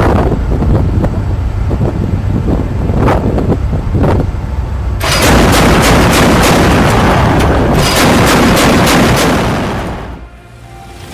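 MK 38 25 mm naval deck gun firing: a few separate shots over a low rumble, then from about halfway in a dense run of rapid fire that stops about a second before the end. Background music plays underneath.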